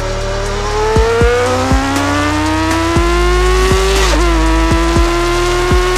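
Sport motorcycle engine accelerating, its pitch climbing steadily through a gear, then dropping sharply at an upshift about four seconds in and climbing again. Music plays along underneath.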